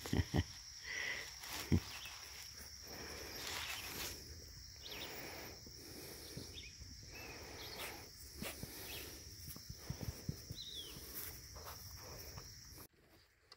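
A steady high insect drone, with rustling and soft knocks of Anatolian Shepherd puppies squirming and mouthing a hand in grass and dry leaves, with a few louder knocks in the first two seconds. Everything cuts off suddenly about a second before the end.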